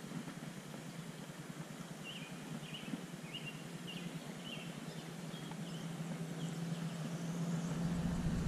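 Outdoor ambience: a steady low hum that grows into a louder low rumble near the end, with a bird giving a quick run of short chirps a couple of seconds in.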